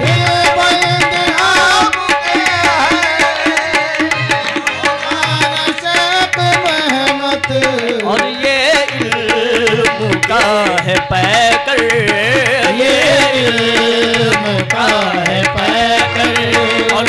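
Music of an Urdu devotional song (manqabat): tabla drumming in a steady rhythm under a wavering melody.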